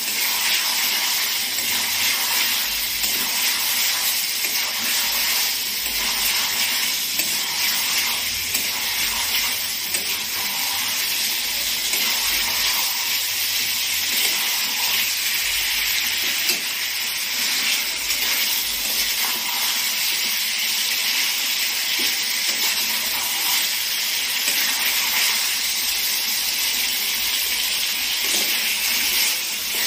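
Chicken pieces and masala paste sizzling steadily in hot oil in a kadhai.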